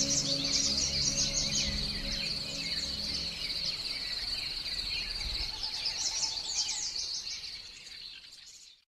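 Night pond ambience: crickets trilling steadily, with birds chirping in quick runs at the start and again about two-thirds in. A low held music tone sits underneath for the first few seconds, and everything fades out near the end.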